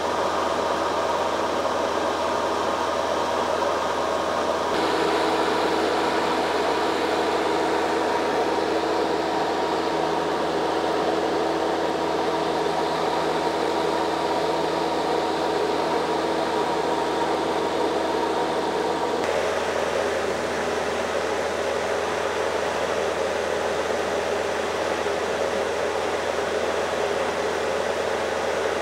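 Cabin noise of a light propeller aircraft in cruise: a steady engine and propeller drone heard from inside the cabin. Its hum changes a little about five seconds in and again around nineteen seconds.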